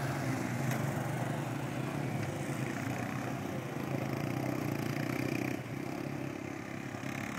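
Several ATV engines running. The nearest quad passes close at first, and the engine sound drops in level about five and a half seconds in.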